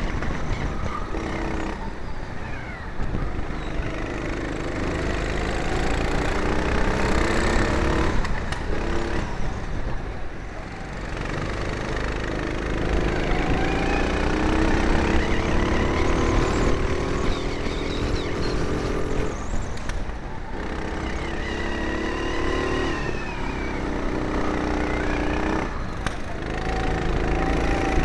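Four-stroke go-kart engines revving hard, heard from aboard a kart with other karts close by; the engine note climbs along the straights and falls away each time the throttle is lifted for a corner, several times over.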